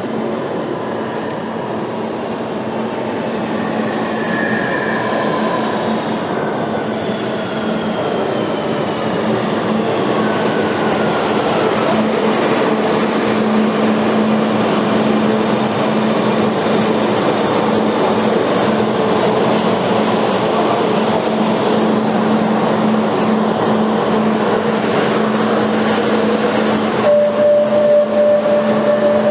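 Metro train pulling into a station: a continuous rumble and hiss that grows slowly louder, with whines from the drive falling in pitch as it slows. Near the end the sound changes and a new steady tone comes in.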